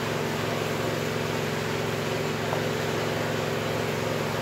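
Steady machine hum over a hiss, unchanging throughout, like a fan or air-conditioning unit running in the room; the pouring and stirring of the batter are not clearly heard above it.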